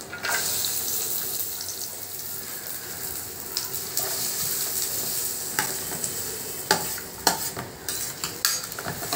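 Chopped onions dropped into hot oil in a metal kadai, sizzling at once and then frying steadily, while a metal spoon stirs them with scattered clinks and scrapes against the pan.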